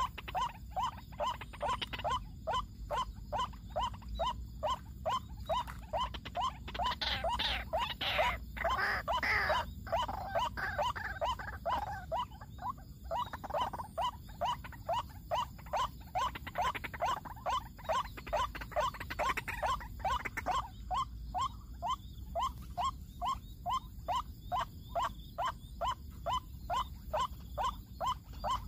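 White-breasted waterhen (ruak-ruak) calling: a steady run of short croaking notes repeated about two to three times a second. A louder, denser stretch of calling breaks in after about seven seconds and again later before the steady pulsing resumes.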